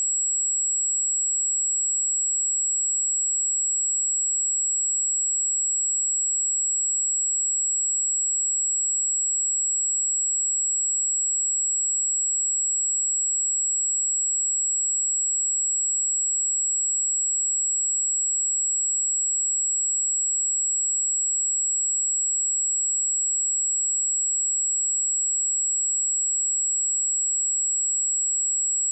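Pure 7721 Hz sine-wave test tone, a single steady high-pitched whistle held at constant level throughout.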